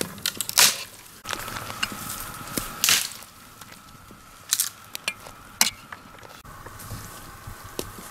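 Homemade pasta tipped into a steaming pot of boiling water over a wood fire and stirred with a spoon: two short, loud rushes of hiss about half a second and three seconds in, with scattered sharp clicks of the spoon against the metal pot.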